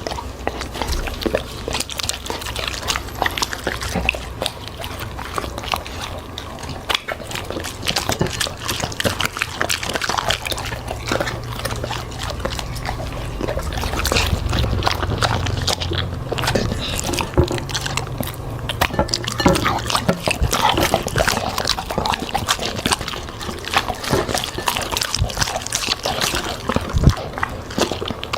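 A dog eating fruit and vegetables: a dense, irregular run of crunches and wet chewing and smacking noises.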